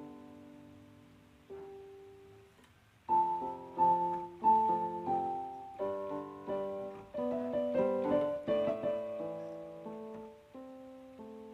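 Background piano music: a few soft sustained notes, then from about three seconds in a livelier run of louder notes that thins out again toward the end.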